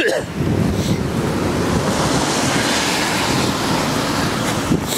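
Wind rushing over the microphone, mixed with cars passing on a wet road with tyre hiss and engine rumble; a steady, loud rush with no clear single event.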